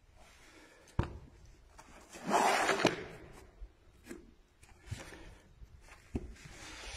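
Old paper school register books being handled: a sharp tap about a second in, a louder paper rustle ending in a soft knock near three seconds, then a few light knocks.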